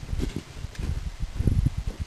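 Footsteps crunching and thudding through snow as a person walks off, several uneven steps a second.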